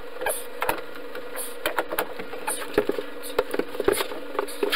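Irregular metallic clicks and taps of an adjustable wrench being set onto and turned on a threaded plumbing fitting, over a steady hum.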